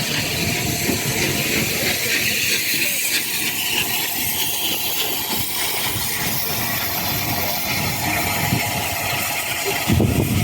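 Steam locomotive 34070 Manston, a Bulleid Battle of Britain class light Pacific, hissing steam steadily over a low, uneven rumble.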